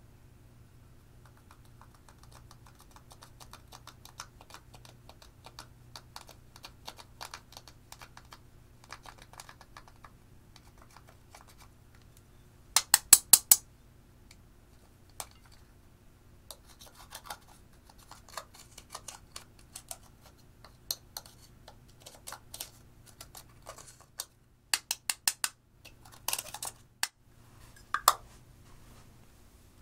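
Small metal spatula scraping and chipping pressed eyeshadow out of the pans of a plastic compact: a dense run of fine, dry scratchy clicks. It is broken by short bursts of sharper, louder clicks about halfway through and several times near the end.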